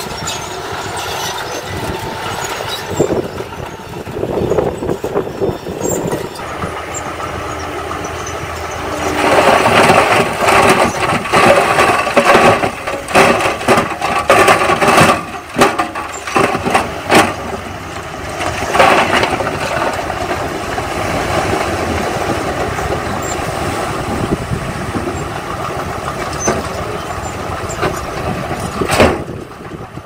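A 5-ton dump truck's engine running, revved harder from about a third of the way in as the tipper bed is raised, with scattered knocks and clatter of stone and soil sliding out of the bed.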